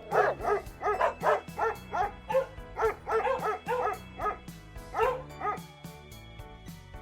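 Dog barking in a quick run of short, high-pitched barks, about three a second, stopping about five and a half seconds in, over background music with a steady beat.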